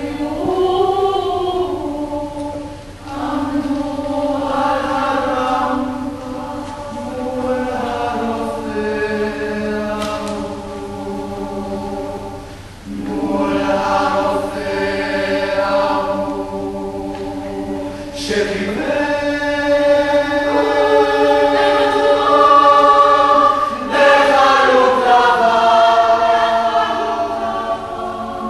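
Choir singing slow, sustained chords in long phrases with short breaks between them, growing fuller and louder in the second half.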